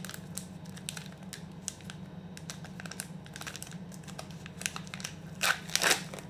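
Milka chocolate bar wrapper crinkling and crackling as it is peeled open by hand, in small irregular crackles, with a louder burst of crinkling near the end.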